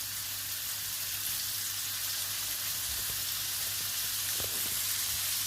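Diced venison shin sizzling in hot oil, butter and rendered pancetta fat in a frying pan as it is browned to seal the meat: a steady hiss with a couple of faint pops.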